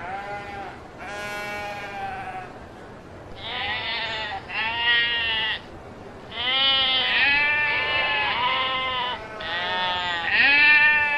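Sheep bleating over and over, a series of about seven separate calls with short gaps between them, some calls wavering in pitch.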